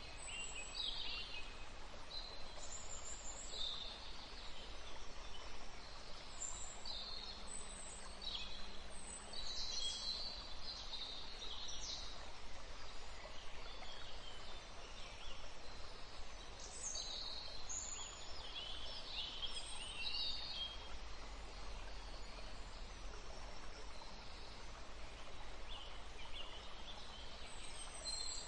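Birds chirping: short, high calls repeated on and off throughout, over a steady background hiss.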